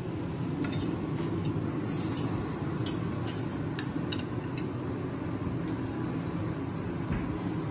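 Steady low rumble of a restaurant's ventilation, with a few light clinks of plates and utensils in the first few seconds.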